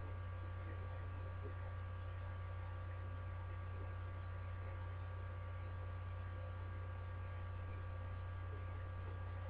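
Steady low electrical hum with a few faint steady high tones over it, unchanging throughout; no other sound.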